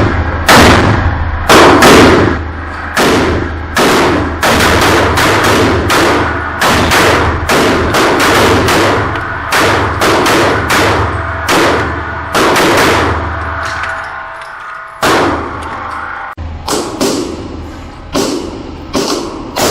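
A long string of 9mm pistol shots from a Glock 43 firing Sellier & Bellot 115-grain rounds, mostly about half a second apart, each shot ringing out briefly. There is a short break about fourteen seconds in, and then the firing resumes.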